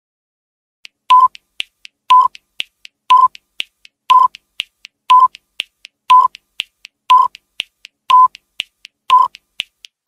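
Countdown timer sound effect: a short beep once a second, nine in all starting about a second in, with light ticks between the beeps.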